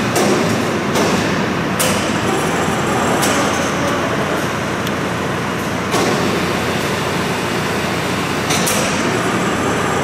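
Mobile gold trommel wash plant running: a steady mechanical rumble, with a few sharp metallic knocks about a second in, near two seconds, around three seconds and about six seconds in.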